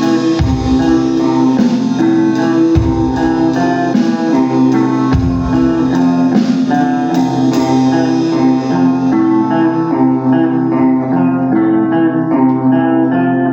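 Guitar-led band music: a quick run of plucked guitar notes over steady low held notes, with the cymbal-like high end thinning out after about eight seconds.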